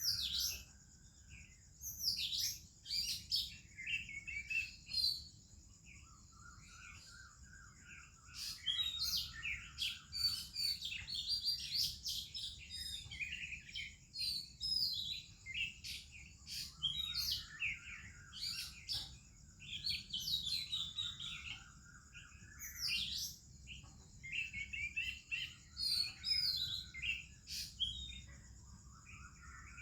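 Oriental magpie-robin singing a varied run of sweet whistled phrases, mixed with other birds, one repeating a lower phrase every few seconds, over a steady high-pitched drone.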